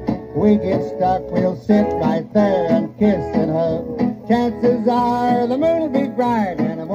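Instrumental break of an old dance-band record playing on a turntable: a guitar lead with sliding, bending notes over a steady rhythm section, without singing.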